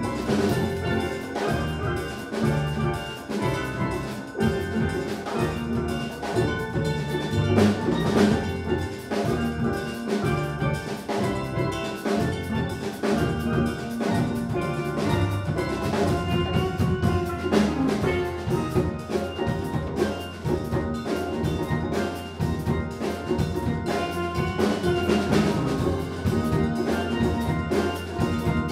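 A steel band playing: steel pans in several ranges, struck in quick runs of ringing pitched notes, over drum kit, electric bass guitar and congas keeping a steady beat.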